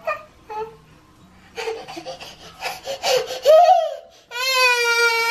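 A toddler's voice: a couple of short babbled syllables, then a run of breathy, fussing sobs, breaking about four seconds in into a loud, sustained high-pitched cry.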